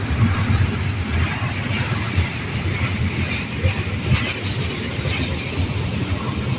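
Union Pacific train rolling past with a steady rumble.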